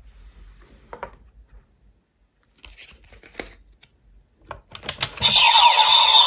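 Light plastic clicks and card handling on a DX Gotchard Driver toy transformation belt. About five seconds in, a card goes into the belt with a click and its speaker starts a loud electronic sound effect with steady tones and sliding pitches.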